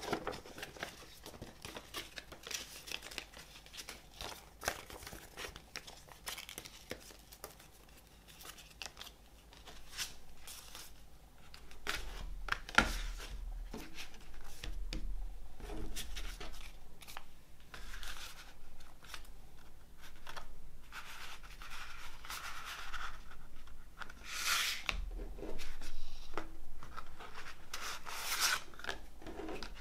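Paper and cardboard handled by hand: a folded glossy poster rustling and being folded, then a cardboard digipak CD case being opened out, with rubs, crinkles and light taps on a wooden table top. The handling comes in irregular bursts and grows busier about halfway through.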